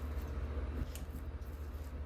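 A steady low hum with a few faint light ticks from handling in a kitchen.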